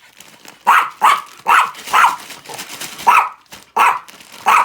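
A pet dog barking for a treat it has just seen brought out: about seven short, sharp barks, four in quick succession, then three more after a short gap.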